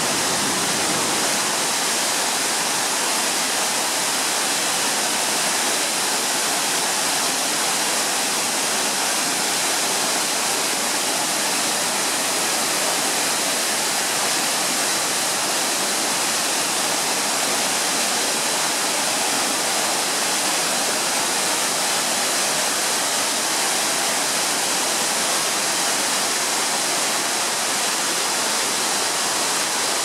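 Large waterfall pouring over a rock ledge into a pool: a steady, dense rush of falling water with no let-up.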